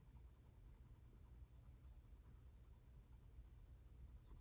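Faint scratching of a Prismacolor coloured pencil shading on paper, over a low steady hum.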